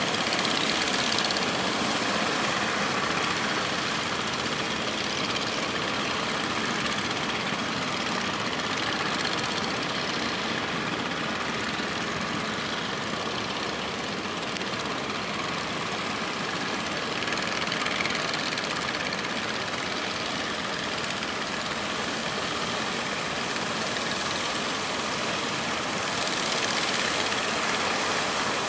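Fishing boat engines running steadily, mixed with the steady rush of strong wind and breaking waves.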